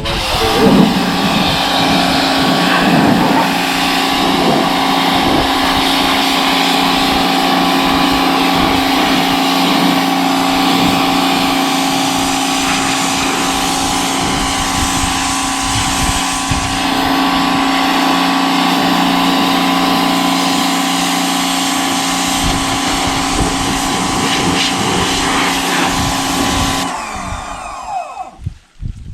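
Greenworks electric pressure washer running under load: the motor and pump hum steadily over the hiss of the water spray. It spins up about half a second in and winds down near the end as the trigger is released.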